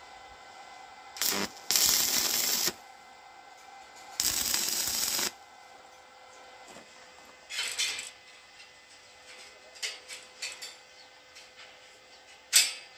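Stick (arc) welding of steel: three short bursts of arc crackle, each about a second long, as scrollwork is tack-welded to a window grille. After that come scattered light clicks and one sharp click near the end.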